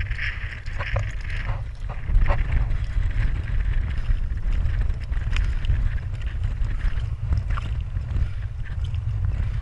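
Wind buffeting the camera microphone in a steady low rumble, with a few light clicks and scuffs scattered through it.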